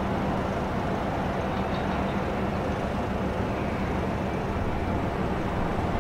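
Noell straddle carrier's diesel engine running steadily with a low hum, amid general container terminal machinery noise.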